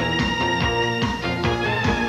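Theme music with a steady beat and held high notes.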